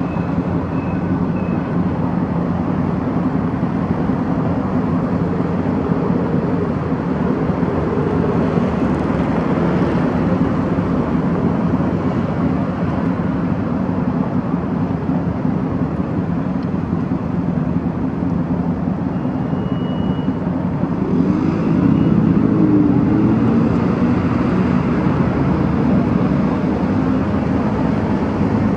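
City traffic: cars driving past close by, a steady wash of tyre and engine noise. It grows louder about three quarters of the way through as a car passes with its engine note rising and falling.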